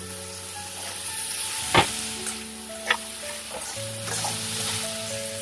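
Onion, green-onion stalks and ginger-garlic sizzling in hot oil in a frying pan while being stirred with a slotted spatula. Two sharp clacks of the spatula against the pan, about two seconds in and again a second later.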